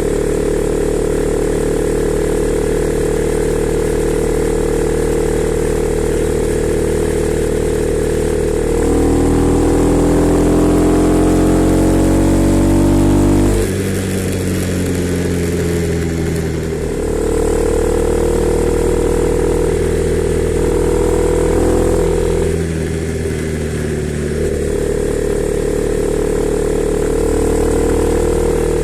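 Honda CB300R's single-cylinder engine running steadily. About nine seconds in, its note climbs in pitch for four seconds and then drops suddenly. It lifts again more briefly and settles back to a steady note near the end.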